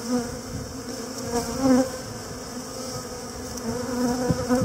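Honey bees buzzing with a steady hum, swelling louder a few times as single bees fly close by.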